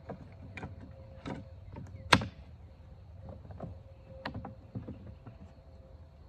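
Parts of a Swiss M1911 rifle being handled and fitted together in reassembly: scattered clicks and knocks of metal and wood, the loudest a sharp metallic clink about two seconds in.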